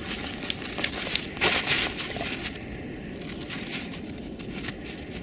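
Dogs digging a hole through snow into the dirt beneath: quick, irregular scratching and crunching of paws in snow and earth, loudest about a second and a half in.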